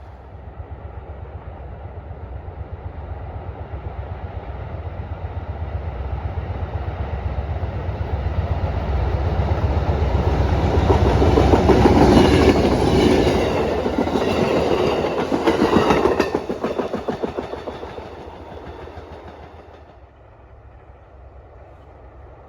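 Train passing, its wheels clicking rhythmically over the rail joints; it grows louder, is loudest a little past halfway, then fades away.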